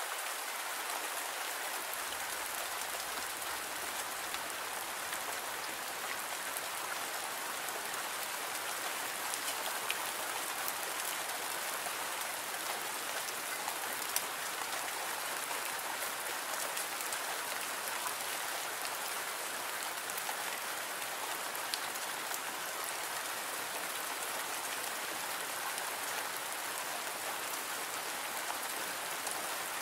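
Steady rain falling, an even patter with scattered individual drop ticks.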